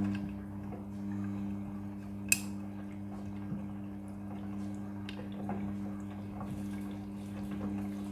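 Midea front-loading washing machine running a Quick Wash cycle: a steady electric hum with water dripping and light clicks, and one sharp click about two seconds in.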